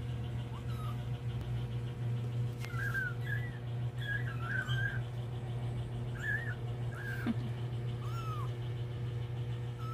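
Young kittens mewing: about ten short, high mews, some in quick runs, over a steady low hum.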